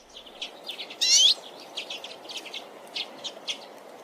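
Redpoll calling: a quick series of short, high chirps, with one louder, longer trilled call about a second in.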